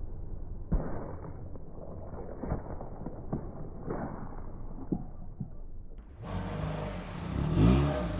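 A car tyre rolling over objects and crushing them: a low, muffled rumble broken by several sharp cracks and crunches. Near the end a louder stretch comes in with a rising tone, like an engine revving up.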